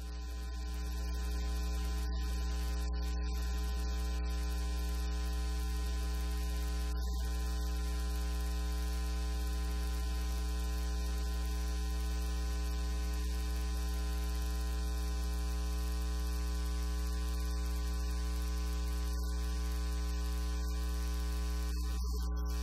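Steady electrical mains hum, a loud low buzz with a series of fainter steady overtones above it, swelling up over the first second or so and then holding constant.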